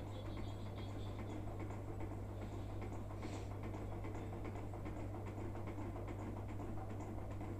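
Faint clicks and handling of a glass bowl and a kitchen knife over a glass baking dish of syrup-soaked sweet, with one short scrape about three seconds in, over a steady low hum.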